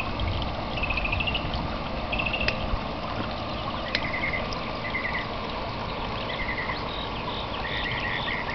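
Water trickling steadily in a small garden pond, with short high chirping trills repeating every second or two.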